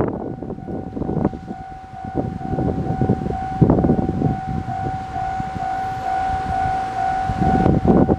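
A steady high-pitched tone held for several seconds, over gusty rumbling noise.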